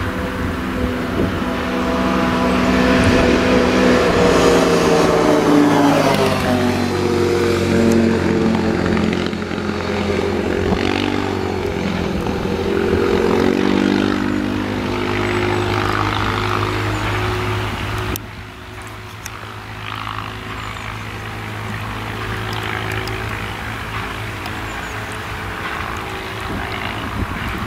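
Fendt tractor's engine running as it pulls a twin-rotor rotary hay rake through cut hay. The engine note falls about five seconds in, then holds steady, and the sound drops to a lower level about eighteen seconds in.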